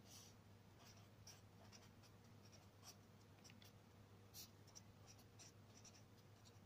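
Faint scratching of a ballpoint pen writing on notebook paper, in short irregular strokes.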